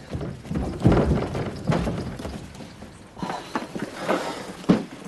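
Scuffling footsteps and a few dull thuds and knocks as people are shoved through a doorway and walk into a room.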